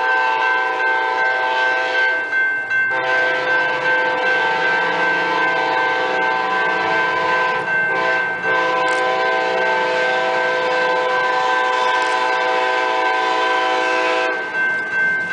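Diesel locomotive horn sounding long blasts for a grade crossing, with two brief breaks, stopping about a second before the end. A railroad crossing bell rings steadily under it throughout.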